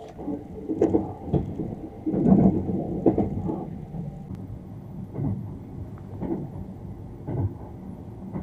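Sleeper train running, heard from inside the cabin: a steady low rumble with irregular dull thumps and jolts, the heaviest about two seconds in.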